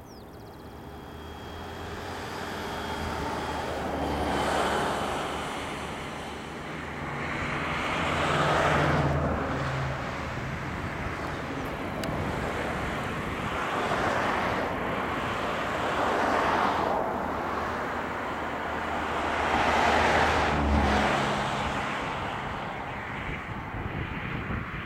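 Airbus A320 twin turbofan engines at climb power after takeoff, heard from the ground as a broad rushing jet noise. It swells and fades several times, with a low steady hum beneath it.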